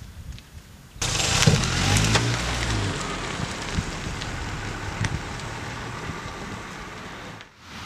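A small hatchback car pulling away: a sudden burst of engine and tyre noise about a second in, then the sound fades steadily as the car drives off.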